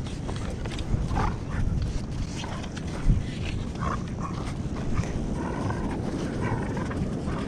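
A dog whining in several short, separate calls spread a second or two apart.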